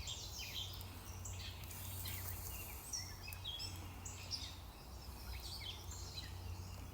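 Birds chirping and calling outdoors: many short chirps, some stepping up or down in pitch, scattered throughout over a low steady background hum.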